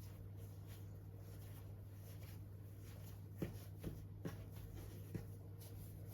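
A low steady hum in a quiet room, with four light taps about halfway through.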